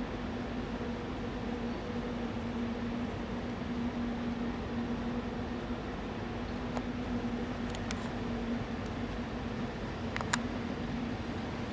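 Steady hum and hiss of a room's ventilation system, with a few small clicks in the second half.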